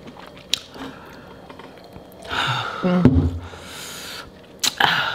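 Quiet small mouth and eating noises. About two seconds in, a woman sharply sucks air in and out with a short low grunt between, then a longer hissing breath, reacting to the burn of extra-hot sauce; another sharp breath comes near the end.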